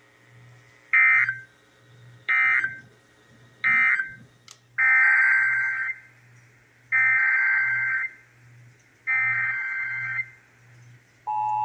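Emergency Alert System SAME data bursts, a buzzy warbling digital screech. First come three short end-of-message bursts about a second apart, then after a pause three longer header bursts announcing the next warning. Near the end the steady two-tone EAS attention signal begins.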